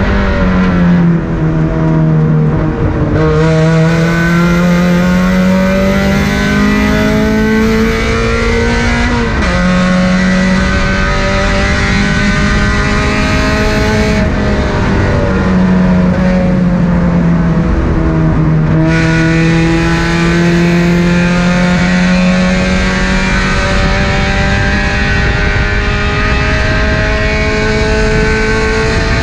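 A car's engine being driven hard around a race track, its pitch climbing steadily for several seconds at a time and then dropping back at gear changes and braking.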